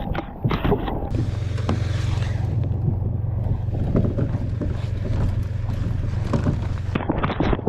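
A motor running at a steady speed under a rush of wind on the microphone, with scattered knocks and clatter just before it starts and again near the end.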